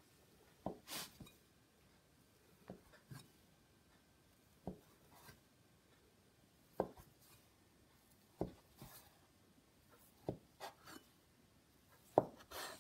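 Chinese cleaver chopping through rolled pastry dough onto a wooden cutting board: about eight short knocks, one every second or two, with faint rubbing of hands and dough between them.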